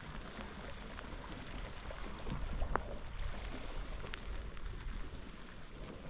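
Outdoor seashore ambience: wind buffeting the microphone over the wash of sea water, with a few faint ticks.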